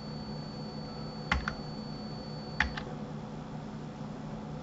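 Computer keyboard keystrokes: two pairs of quick clicks about a second and a half apart, over a steady low hum. A faint high whine stops just after the second pair.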